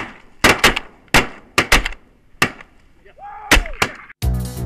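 A volley of shotgun shots from waterfowl hunters, about eight in a few seconds, some in quick pairs, each with a short echo. A brief rising-and-falling call sounds just before the last pair, and music comes in near the end.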